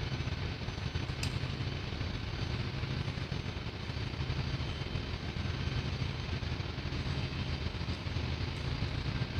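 Steady low drone of running machinery, with a light click about a second in.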